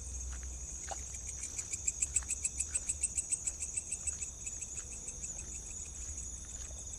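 Night insects: a steady high-pitched cricket buzz, joined about one and a half seconds in by a rapid pulsing trill, about eight pulses a second, that fades out by about four seconds.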